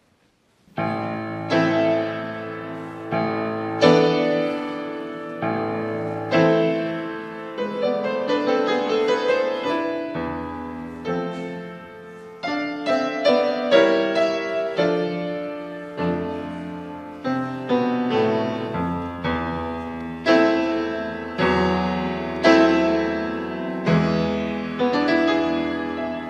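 Piano playing the slow chordal introduction to a choral hymn. Chords are struck every second or two and each fades away, starting just under a second in and tapering off near the end.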